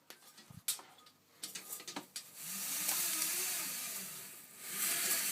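Unidentified animal giving long, harsh hissing screeches with a wavering pitch, twice: the first lasts about two seconds, the second starts near the end. Before them, a few faint clicks and rustles.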